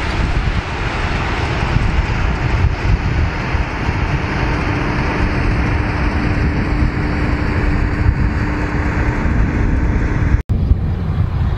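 Massey Ferguson 7480 tractor pulling a front rotary harrow and potato planter across the field, a steady engine-and-implement drone with wind buffeting the microphone. The sound cuts out for an instant near the end.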